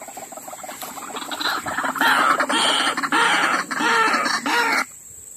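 Repeated bird-like animal calls played loud from an MP3 player used as a hunting caller, building over the first two seconds and cutting off suddenly near the end as the player is switched off.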